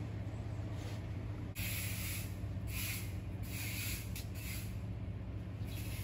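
A steady low hum with several separate bursts of high hiss, the first about a second and a half in.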